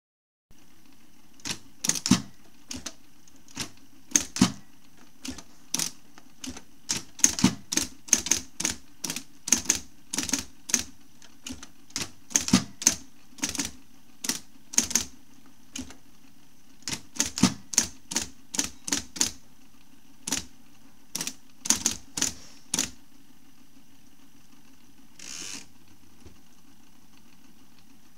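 IBM Model C electric typewriter typing: irregular sharp keystrikes, sometimes in quick runs, over the steady hum of its running motor. The typing stops a few seconds before the end, with one longer, softer sound about 25 seconds in while the motor keeps humming.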